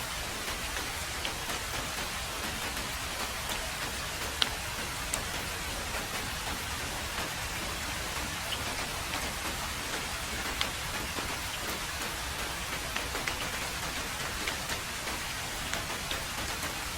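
Heavy rain falling steadily on a road: an even, dense hiss with scattered sharp drop ticks, the loudest about four seconds in and another near the eleven-second mark.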